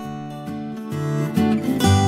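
Background music led by strummed acoustic guitar, growing louder about a second in.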